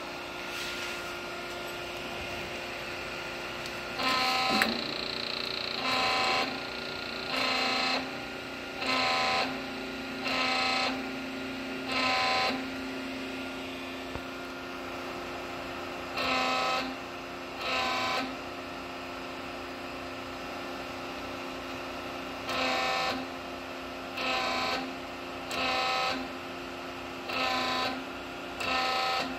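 Kitagawa S1243-28 rotary cylinder running on a test stand: a steady mechanical hum, broken by short, louder whining surges about one every second and a half, in three runs.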